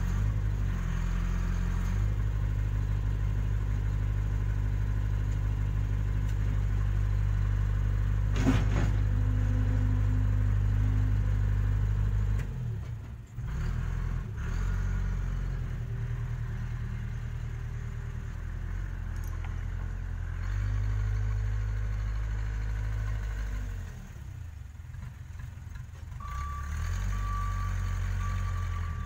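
Case 580K backhoe loader's diesel engine running under shifting load, its level rising and falling as the machine works. There is a single sharp knock about eight seconds in, and a repeating high beep, the reversing alarm, starts near the end.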